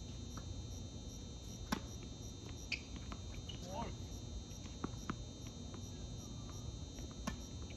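Crickets chirping in a steady, regular pulse of about three chirps a second, with a few sharp knocks scattered through, the loudest a little under two seconds in.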